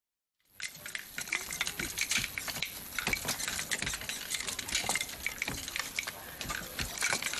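Dense clicking and clattering of small hard objects over a steady hiss, starting abruptly about half a second in after a moment of silence.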